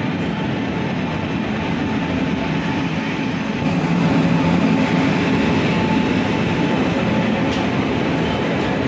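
Passenger train pulling into the platform behind a WAP-7 electric locomotive, with the coaches rolling past at low speed. The wheels rumble steadily on the track, growing louder about three and a half seconds in as the coaches go by close.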